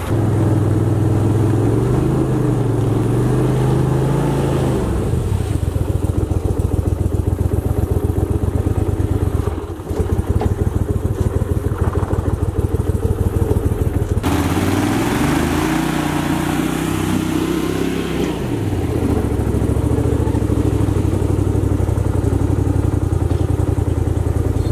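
Boat motor running steadily, its pitch rising and falling back twice as the throttle is opened and eased off.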